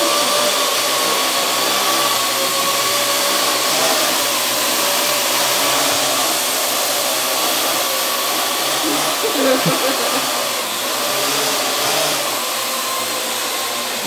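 Parrot AR.Drone quadcopter hovering: the steady, loud whirring buzz of its four electric motors and propellers, with a high whine running through it.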